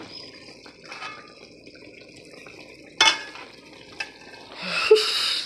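Cooking pot and kitchen utensils being handled: a sharp clatter about three seconds in, a click a second later, and a second-long rush of noise near the end, over a faint steady background.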